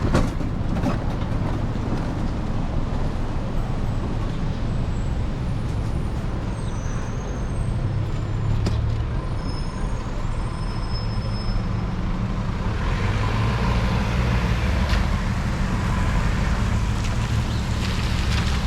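City street traffic in the rain: a steady rumble of passing cars, buses and trucks, with a louder rushing hiss of tyres on wet road building up about two-thirds of the way through.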